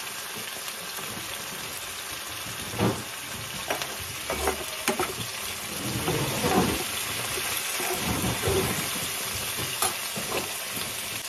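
Vegetables sizzling steadily in a frying pan, with occasional knocks and scrapes of a knife and spatula against the pan as they are stirred.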